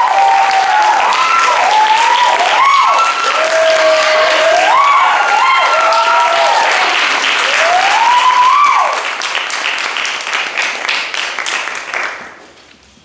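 Small audience applauding with several whoops and cheers that rise and fall in pitch. The cheering stops about nine seconds in, and the clapping thins and fades out near the end.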